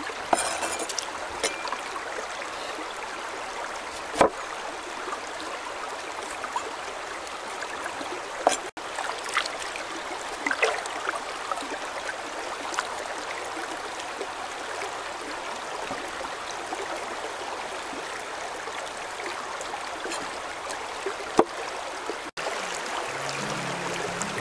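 Shallow stream water running over rocks, a steady rush, with a few sharp knocks of a cleaver cutting cauliflower on a wooden chopping board.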